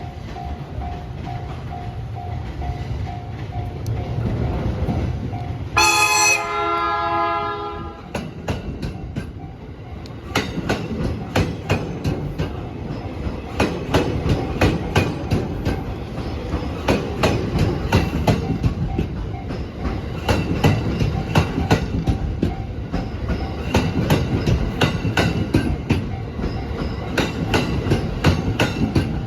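Level crossing warning bell ringing in repeated pulses over the low rumble of an approaching JR East E231-1000 series train. About six seconds in, the train sounds its horn for about a second and a half. Its wheels then clack over the rail joints in a long, steady run as the train passes, with the crossing bell still ringing underneath.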